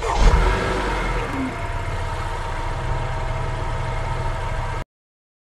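Car engine sound effect: a loud low rev at the start, then the engine running steadily, cut off abruptly near the end.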